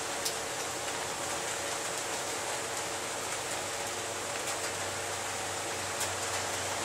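Steady background hiss, with a couple of faint light ticks.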